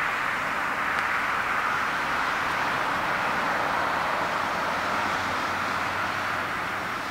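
Boeing 747-400's four Rolls-Royce RB211 turbofan engines at take-off thrust as the airliner climbs away after lift-off: a steady rushing jet noise that eases slightly near the end.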